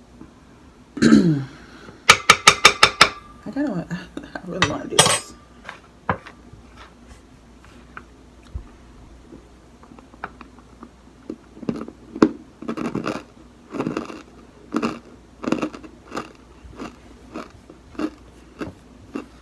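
Cornstarch being scooped by hand from a bowl and eaten: short crunching, squeaking bursts and chewing in a string through the second half. About two seconds in, a quick run of about seven sharp metallic clicks.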